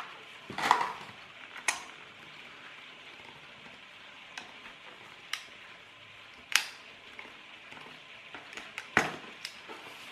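Brittle plastic of a cheap toolbox cracking and snapping as it is cut and broken away with a knife: a series of sharp, irregular cracks, the loudest about half a second, six and a half and nine seconds in.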